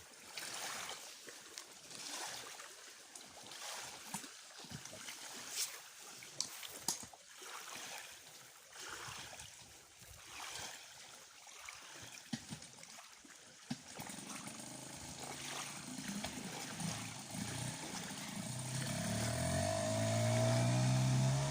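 Water trickling and lapping with small knocks and splashes. About two-thirds of the way through, an outboard motor comes in faintly and grows louder, its pitch rising near the end.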